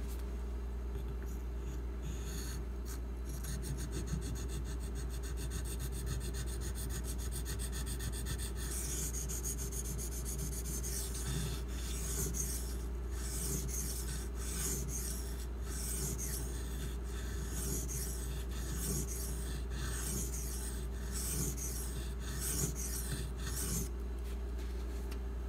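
Pocketknife blade of 1095 carbon steel stroked back and forth on a Shapton Glass 500-grit whetstone, a rasping scrape of many quick strokes while the edge bevel is reprofiled. The strokes start about two seconds in and stop shortly before the end.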